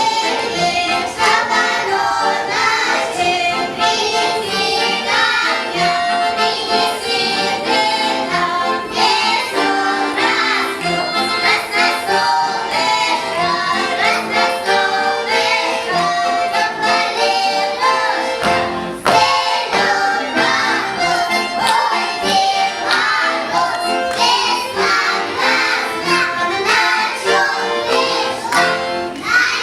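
Music: a melodic instrumental passage, the introduction to a children's song.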